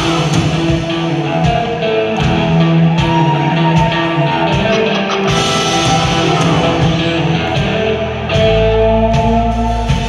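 Live rock band playing: electric guitars holding long notes over bass and drums. The bass gets heavier about eight and a half seconds in.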